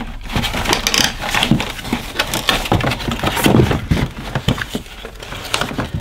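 Stiff cardboard packaging being handled: card inserts rustling, scraping and knocking irregularly as they are lifted out of a box.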